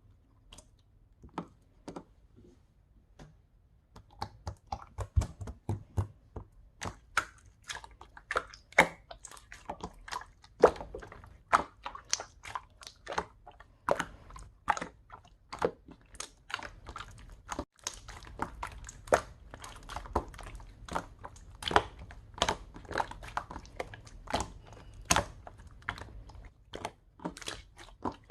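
Clear slime being squeezed and pressed by hand, giving many small sharp clicks and pops. There are a few scattered ones at first, then from about four seconds in several a second, irregular.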